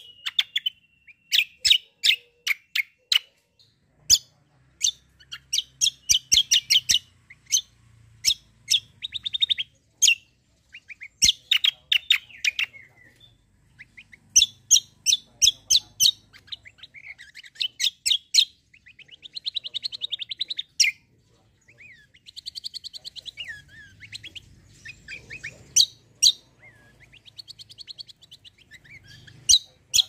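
Caged kecial kombo songbird singing in full voice: bursts of sharp, high chip notes and fast trilled rattles repeated throughout, with brief pauses between phrases.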